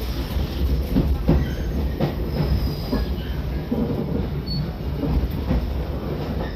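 Passenger coach of a diesel-locomotive-hauled train running along the track: a steady low rumble with irregular knocks from the wheels and rail joints, and a couple of brief, faint high wheel squeals around the middle.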